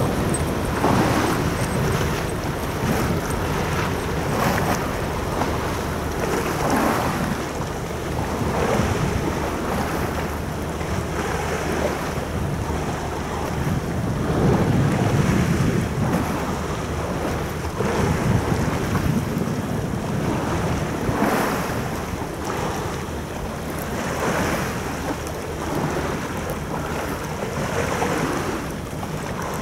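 Wind buffeting the microphone, rising and falling in gusts, over the steady wash of harbour water.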